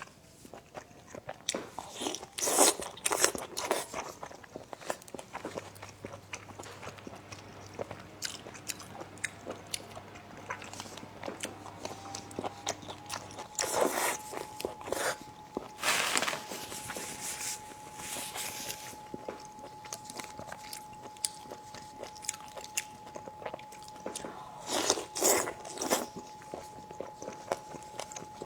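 Close-miked eating: chewing and biting with constant wet mouth clicks, rising into several louder bursts. A faint steady high tone glides up and comes in about halfway through.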